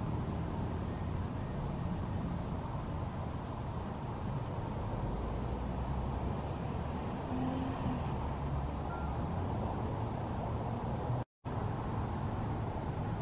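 Faint, high chittering calls of Vaux's swifts in short scattered bursts over a steady low background rumble. The sound cuts out for a moment about two-thirds of the way through.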